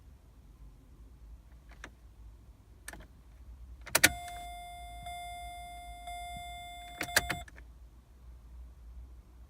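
Corsa D turned to start without cranking: a loud click, then a steady electrical whine for about three and a half seconds, ending with a few clicks. There is no cranking and the engine does not start.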